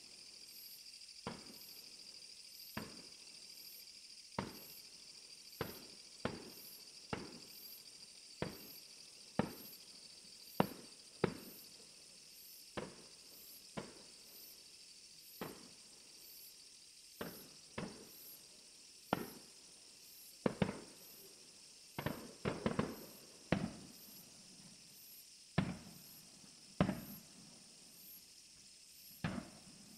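Fireworks shells bursting: a string of sharp bangs about one a second, each with a short echoing tail, coming in a quick cluster about two-thirds of the way through.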